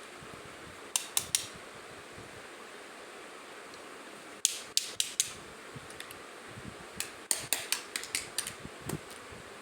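Small plastic toy kitchen pieces clicking and tapping as they are handled, in quick clusters of sharp clicks (three about a second in, a few more around the middle, and a faster run of about ten near the end) over a steady hiss.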